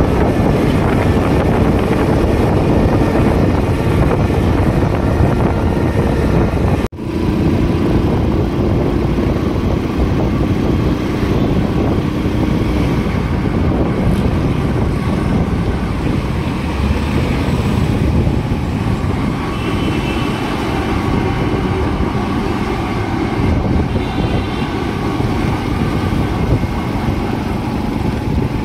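Wind buffeting the microphone over the engine and road noise of a motorcycle riding through city traffic; the sound cuts out for an instant about seven seconds in.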